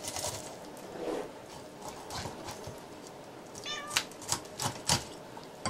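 A cat meows once, briefly, a little past the middle. Right after, a kitchen knife cracks through a sea bream's head against a wooden cutting board in several sharp knocks.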